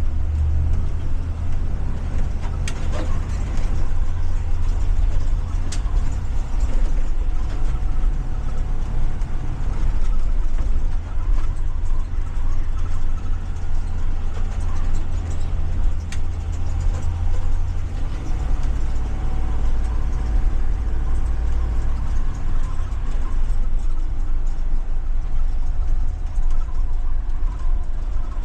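Ford 7.3 L gasoline V8 of a full-size school bus running steadily, heard from the driver's seat inside the cabin as a deep drone, with a few short clicks and rattles now and then.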